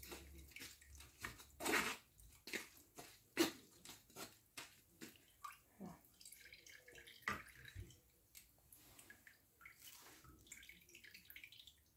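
Lemon juice being strained through a fine stainless mesh sieve, dripping and trickling into a plastic bowl of juice. Irregular small splashes and clicks come from a wooden spoon pressing the pulp in the sieve.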